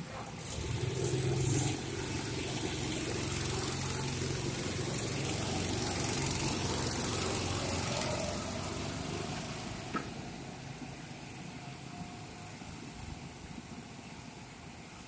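Go-kart engines running as karts circle the track, louder for the first eight seconds or so and then fading away. There is one short knock about ten seconds in.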